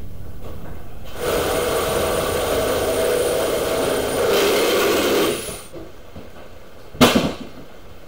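A corded power saw cutting through the truck cab's metal pillar. It runs steadily, gets louder about a second in and stops around five and a half seconds. A single sharp knock follows about seven seconds in.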